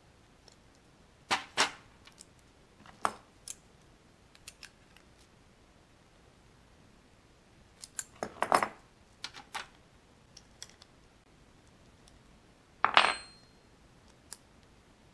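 Scattered clicks and light knocks of a wooden toy car with rubber wheels on axle pins being handled, fitted and set down in a plastic tray. The loudest knock comes near the end, with a short metallic ping.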